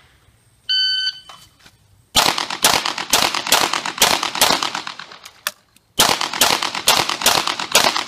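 An electronic shot timer beeps once, then a pistol fires a fast string of sharp shots, stops for about a second past the halfway point (the pause of a reload), and fires a second fast string.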